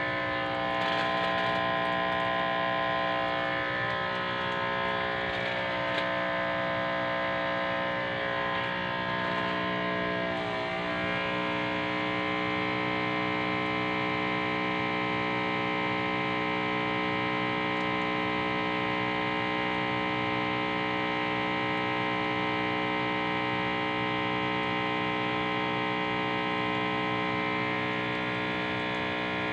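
Electric water pump running steadily, a bit noisy, as a hum made of many steady tones while it feeds a hand-held spray wand; its pitch wobbles and dips briefly about ten seconds in.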